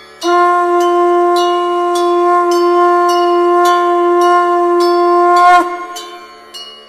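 A conch shell (shankh) blown in one long steady note for about five seconds, its pitch dropping as it cuts off. Bells ring about once a second under it and carry on after the note ends.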